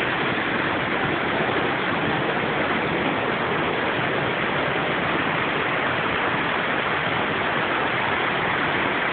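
Steady rush of white water from a creek cascading toward the brink of a waterfall, an unbroken noise with no change in level.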